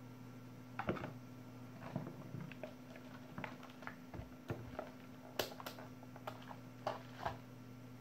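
Handling noise on a workbench: a scattered series of light clicks and knocks as test leads, a battery and a plastic-cased multimeter are moved and set down on a rubber mat, over a steady low hum.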